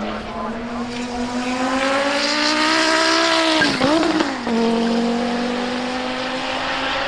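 Audi 200 Quattro Trans-Am's turbocharged five-cylinder engine at racing speed, climbing in pitch for about three seconds. It dips and wobbles briefly about four seconds in at a gear change, then pulls again from lower revs.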